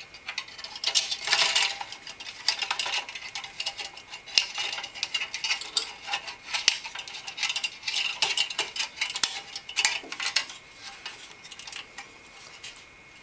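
A 140 mm fan's plastic frame and wire fan clips scraping and clicking against the metal heatsink of a twin-tower Phanteks PH-TC14PE CPU cooler as the fan is slid into place: dense, irregular metallic clinks and rattles that die away shortly before the end.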